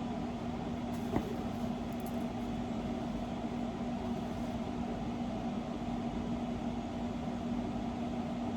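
Steady mechanical room hum with a constant low tone, like an appliance or air-conditioning unit running, and one faint click about a second in.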